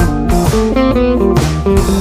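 Background music: an upbeat guitar tune with bass and drums.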